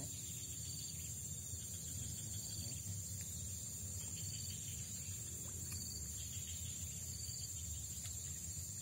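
Steady high-pitched insect trilling, with short chirps recurring every second or so, over a low rumble.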